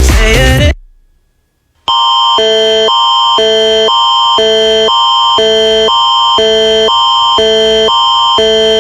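Canadian Alert Ready (Environment Canada) emergency alert attention signal: two chords of steady electronic tones alternating about twice a second, with a high tone held through both, starting about two seconds in and sounding for about eight seconds. A burst of electronic music cuts off within the first second, followed by a second of silence before the tones.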